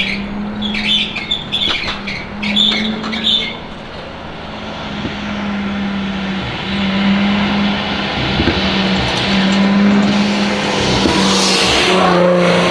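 Supercharged V6 Dodge Challenger with catless downpipes, an X-pipe and active mufflers, driving: the exhaust crackles and pops through the first few seconds, then the engine pulls steadily and grows louder, rising in pitch near the end.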